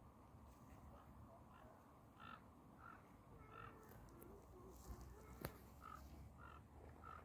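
Faint bird calls at the river: short repeated calls, about two a second, starting about two seconds in, with one sharp click partway through.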